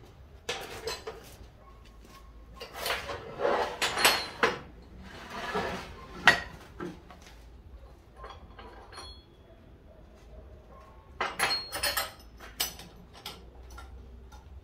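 Metal clinking, knocking and scraping from a metal casting mold and tools being handled. It comes in several bursts, around 3 to 6.5 seconds in and again around 11 to 13.5 seconds, with the sharpest knock about six seconds in and brief ringing after some strikes.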